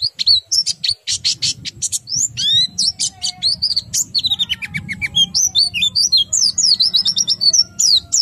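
White-eye (pleci) singing a fast, unbroken song of high chirps and quick downward-sliding whistles, the rolling 'ngerol' song with sharp high 'nembak' notes.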